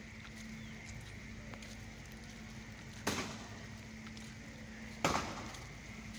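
Steady rain falling on flooded ground and standing water, under a faint steady hum, with two sudden loud bumps about three and five seconds in that die away quickly.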